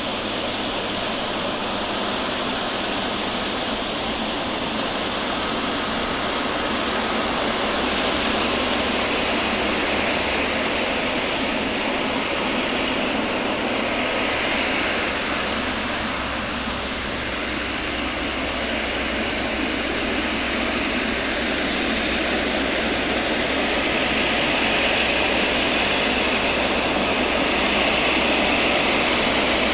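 Boeing 777 freighter's jet engines running after pushback, a steady rushing roar that grows a little louder near the end as the aircraft starts to move off.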